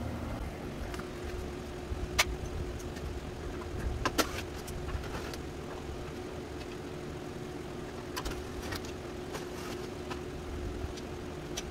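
A few short, sharp clicks and taps of hand work on the grille's screws and clips, over a steady low background hum.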